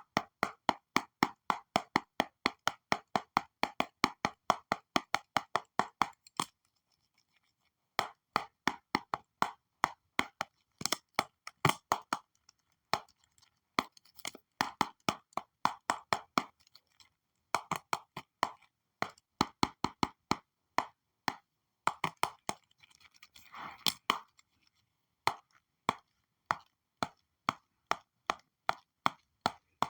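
Stylus clicking rapidly on a digital drawing tablet, about four sharp taps a second, with two short pauses and a brief scratchy stroke about three-quarters of the way in.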